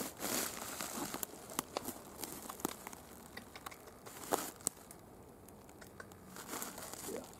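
Faint rustling and crinkling close to the microphone, broken by scattered light clicks and ticks, louder in the first half.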